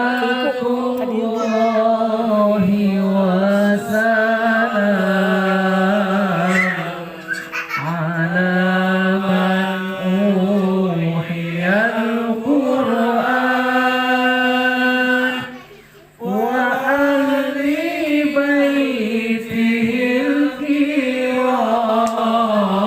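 A male voice singing sholawat, Arabic devotional praise of the Prophet, in long drawn-out phrases with the pitch winding up and down. There is a short break for breath about sixteen seconds in.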